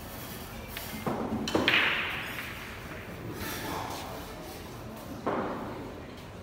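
Three sharp thuds. One comes about a second in, the loudest about a second and a half in and ringing on for about a second, and the last about five seconds in.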